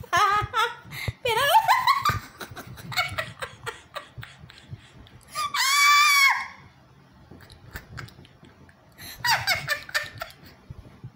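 High-pitched vocal squeals with sliding pitch in the first two seconds, one long high held cry about six seconds in, and another short burst of falling squeals about nine seconds in.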